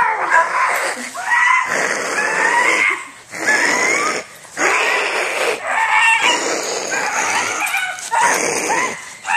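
A dog yelping and whining in a run of loud bursts with short gaps between them.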